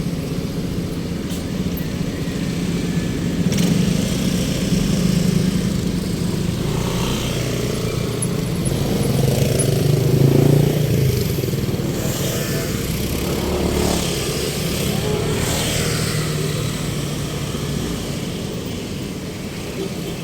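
A motor engine drones steadily, growing louder to a peak about halfway through, then slowly fading as it passes.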